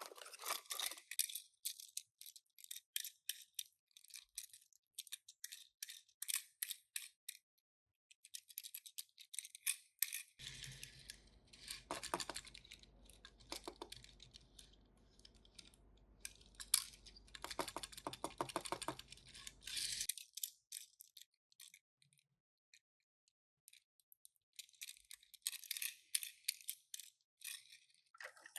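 Handling noises from unboxing toys: bursts of rapid crinkling, rustling and clicking, about eight seconds at a time with short pauses between. In the middle stretch a faint steady low hum lies under the clicking.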